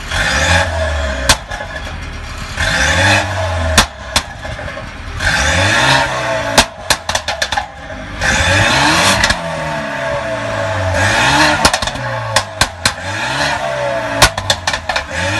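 BMW N20 2.0-litre turbo four-cylinder, with downpipe and resonator delete, revved in short blips about every three seconds. As the revs fall, each blip is followed by a string of sharp pops and bangs from the exhaust: overrun crackles from a tune set up for pops and bangs.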